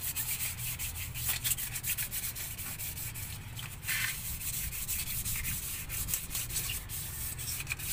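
The face of a Mitsubishi Adventure's 4D56 diesel flywheel scrubbed by hand to clean it before a new clutch disc and pressure plate go on: a continuous irregular rubbing and scuffing of quick back-and-forth strokes.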